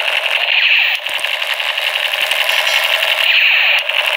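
Battery-powered toy military gun firing its electronic rapid-fire sound effect through its small speaker: a loud, fast buzzing rattle, broken by short pauses about a second in and near the end.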